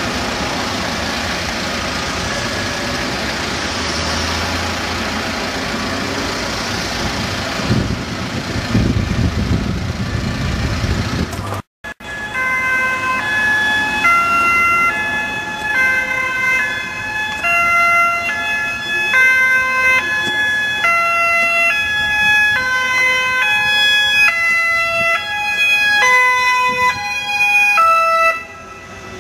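Street traffic noise, with a heavy vehicle louder about eight seconds in. After a sudden cut, two-tone emergency sirens alternate high and low notes, more than one sounding at once and overlapping out of step, as an ambulance approaches.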